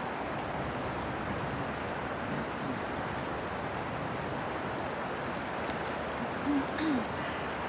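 Steady rushing noise of river water and wind, with a loaded motor cargo ship passing at a distance. Two short low calls sound near the end.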